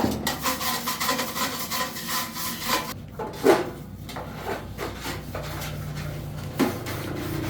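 Rapid back-and-forth scraping or rasping strokes, about four a second, like a hand tool filing or scrubbing a part during repair work. The strokes stop after about three seconds, followed by a few light metallic clinks.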